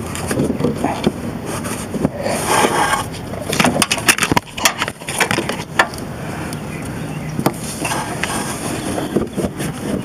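A battery cable being pulled up through a cramped engine bay by hand, with repeated clicks, knocks and scraping as it drags against metal parts.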